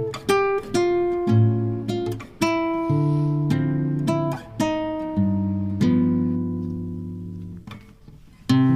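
Background music of an acoustic guitar strumming chords. One chord is left to ring out and fade before a fresh strum near the end.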